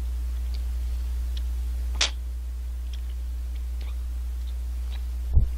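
Faint wet mouth clicks as a man sucks on a milk ice-cream bar, letting it melt rather than biting it, over a steady low electrical hum. There is a sharper click about two seconds in and a low thump near the end.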